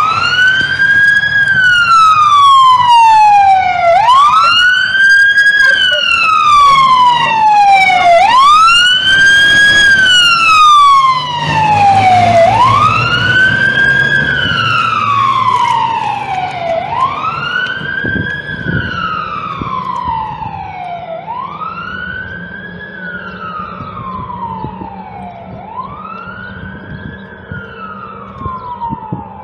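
Fire engine siren wailing, each cycle rising quickly and gliding slowly back down, about every four seconds. It is loud at first, then fades steadily from about eleven seconds in, with a low engine rumble underneath.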